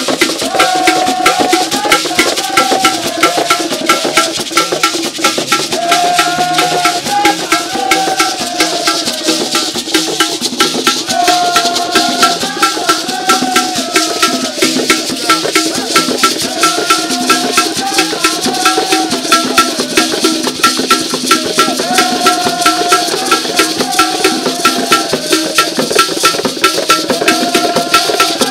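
Traditional drum ensemble playing: wooden hand drums with a shaker, keeping a fast, even clicking beat. A short melodic phrase comes back every few seconds over the drumming.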